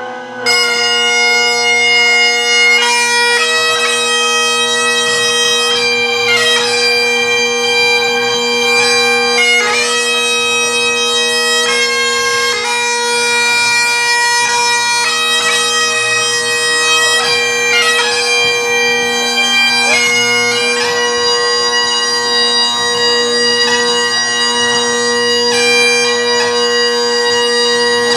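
Bagpipes playing a slow, well-known tune over steady drones, the chanter melody moving note to note above the unchanging drone pitch.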